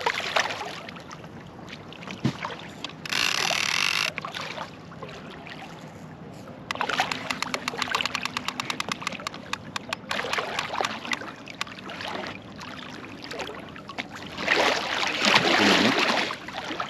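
Large wels catfish thrashing at the surface during the fight, with loud splashes about three seconds in and again near the end. In between, the fishing reel gives a rapid, even run of clicks for about three seconds.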